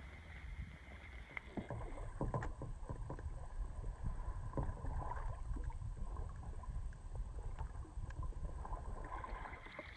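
Sea kayaks being paddled across choppy water: irregular paddle splashes and water slapping against the hull, over a steady low rumble.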